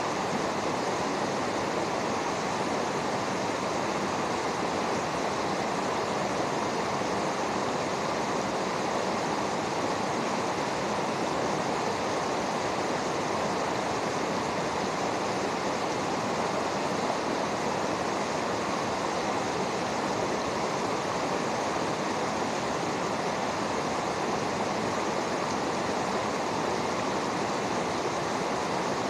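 Fast mountain stream rushing over rocks: a steady, unchanging rush of water.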